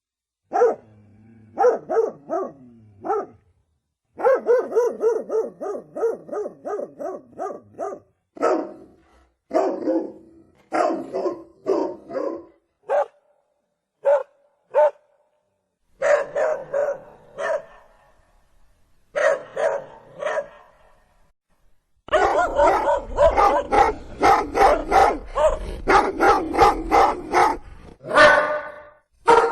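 A dog barking: single barks and quick runs of several barks a second, with a long dense run of barking near the end over a low rumble.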